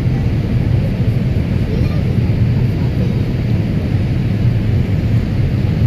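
Steady cabin noise inside a Boeing 787 Dreamliner on its landing approach: the engines and rushing airflow make a dense, even, low rumble.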